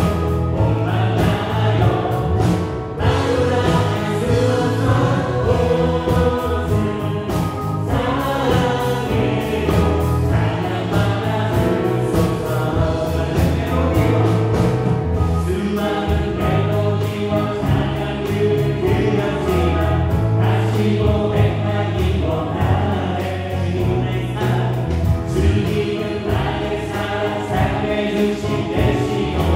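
Live worship band playing a praise song on electric guitar, bass guitar, drum kit and keyboards, with voices singing along.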